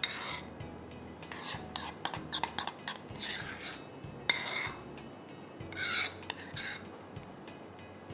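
A kitchen utensil scraping and clicking against a container in several short strokes, as toffee caramel sauce is scooped out for the top layer of a cheesecake.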